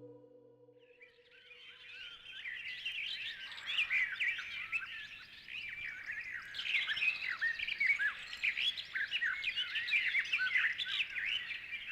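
Many small birds chirping together in a dense chorus of quick, overlapping calls, fading in about a second in and growing fuller partway through.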